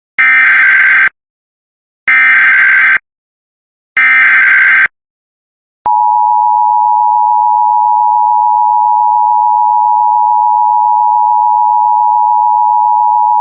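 Emergency Alert System broadcast header: three raspy bursts of digital SAME data, each about a second long with a second of silence between, which carry the alert's coded event and area. About six seconds in, the steady EAS attention tone starts; it signals that a spoken alert message follows.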